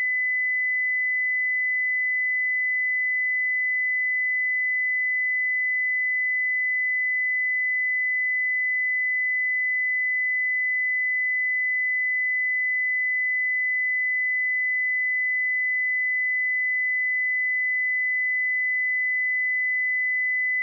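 A pure 2007 Hz sine-wave test tone, a single high-pitched whistle-like note held perfectly steady at constant volume.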